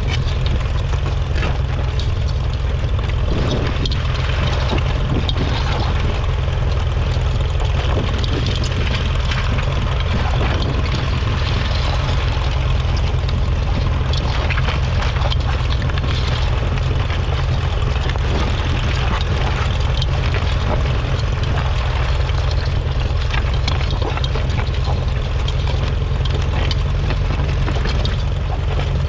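1953 Ferguson TED20 tractor's 2.1-litre four-cylinder petrol/TVO engine running steadily, a constant low rumble with no change in speed.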